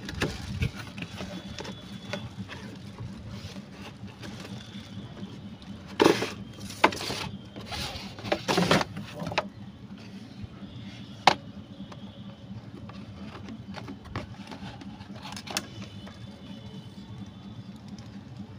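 Cardboard toy box and its packaging being handled and opened: scattered scrapes, rustles and sharp taps, most of them between about six and nine seconds in, plus a single sharp click about eleven seconds in, over a steady low hum.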